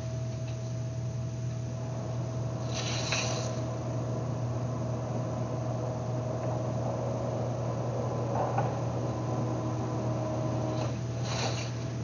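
A steady low hum throughout, with a few short, faint scratches of a pin tool marking the soft clay slab roof.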